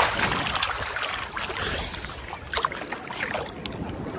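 Sea water sloshing and splashing right at a microphone held at the surface as an ocean swell rises past, with a burst of splashing at the start and sharper splashes about two and a half seconds in.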